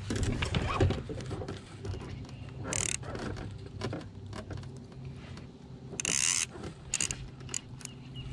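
Fishing tackle being handled on a boat deck: scattered clicks and rattles, with two short hissing bursts, the louder one about six seconds in, over a steady low hum.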